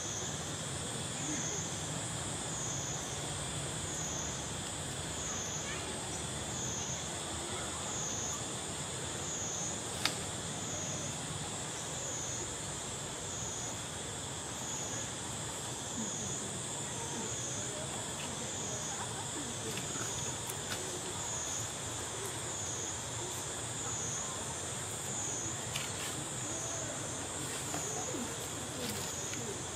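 Insect chorus of the forest: a high whine that swells and fades about every one and a half seconds, over a steadier lower buzz, with a single sharp click about ten seconds in.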